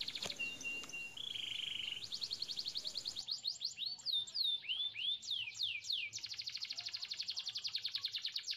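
A songbird singing: long fast trills, a held whistled note, then many quick downward-sweeping whistles.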